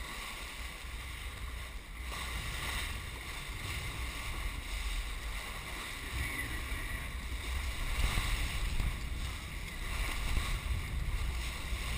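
Offshore sportfishing boat underway: a steady low engine rumble under the rushing wash of the wake.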